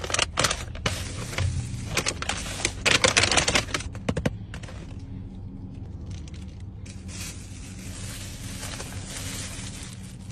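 Paper food wrapper being torn open and crinkled by hand, loud and busy for the first four seconds or so, then quieter rustling and handling of food packaging over a steady low hum.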